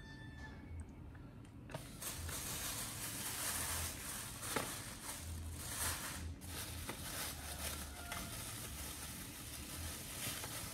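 A steady hiss that starts about two seconds in and swells and fades a little, with a few faint clicks.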